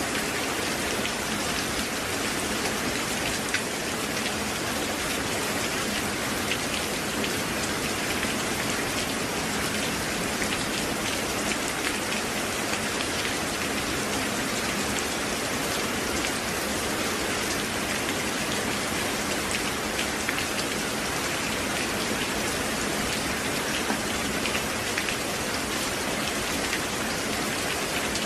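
Steady rain: an even hiss with many small raindrop ticks scattered through it.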